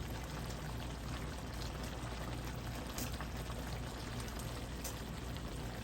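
Chicken Panang curry in coconut milk simmering in a pan, a steady bubbling hiss with a few faint pops.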